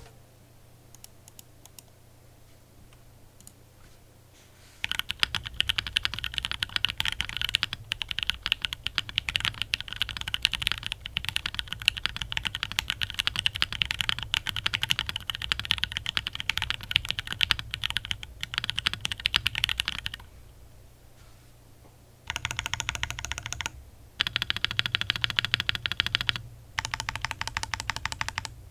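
Typing test on a Portico68 gasket-mounted aluminium mechanical keyboard fitted with TKC Kiwi tactile switches and ABS keycaps. A few scattered keystrokes come first, then about fifteen seconds of fast, continuous typing, a short pause, and three shorter bursts of typing near the end. The board has a slight hollowness to its sound, and the owner thinks he may have slightly overlubed the Kiwi switches.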